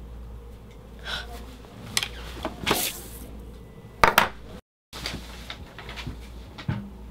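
Scattered rustles, knocks and small clicks of paper and small objects being handled on a desk, with a pen working on a photograph later on, over a low steady hum. The sound drops out to dead silence for a moment just before the middle.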